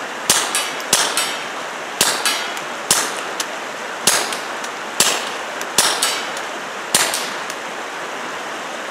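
Taurus TX22 .22 LR pistol firing through an aluminium fuel-filter-style suppressor with standard, not subsonic, ammunition: about eight sharp cracks roughly a second apart, each trailing off briefly. The shooting stops about seven seconds in.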